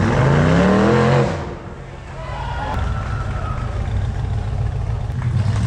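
High-horsepower off-road hill-climb vehicle's engine revving hard, its pitch rising for about a second and a half, then backing off sharply and running on at a lower, steadier pitch.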